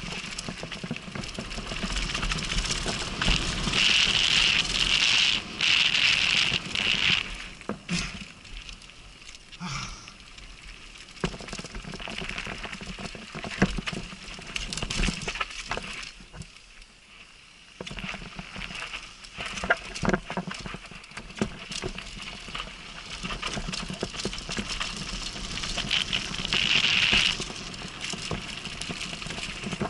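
Downhill mountain bike running fast over a dirt and gravel trail, heard from a helmet camera: tyres crunching over the ground, frequent knocks and rattles from the bike over bumps, and wind rushing over the microphone. It goes quieter for a couple of seconds about two-thirds of the way through.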